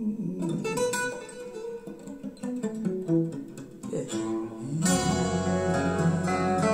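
Recorded song playing through a pair of Dantax New Magic bookshelf speakers: plucked guitar notes without singing, then a fuller accompaniment with a steady bass note coming in about five seconds in.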